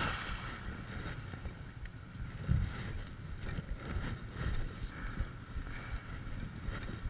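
ATV engine running at low revs, a steady low rumble, with wind buffeting the microphone. A dull bump comes about two and a half seconds in.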